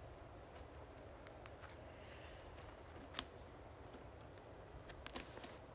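Pink slime kneaded and pressed between the fingers, giving a few scattered faint clicks and pops over quiet room noise.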